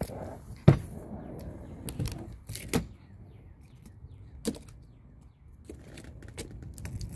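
Claw of a claw hammer prying a glued-in battery out of an Apple mouse's aluminium shell: scraping and creaking broken by sharp cracks and snaps as the glue and plastic give, the loudest under a second in.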